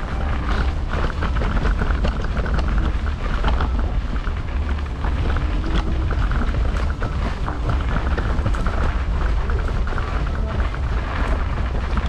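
Steady low rumble of wind on the camera microphone and the small wheels of an electric kick scooter rolling over snow-dusted paving, with scattered small clicks and rattles.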